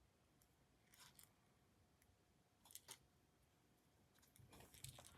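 Near silence broken by faint clicks and rattles of a small fidget toy being handled, as pieces are worked into place: once about a second in, again near three seconds, and a longer rattle near the end.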